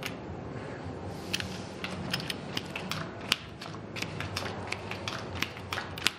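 Cards dealt from the shoe onto a felt blackjack table, with casino chips handled on the table: a run of many short sharp clicks and taps, thickest from about a second in.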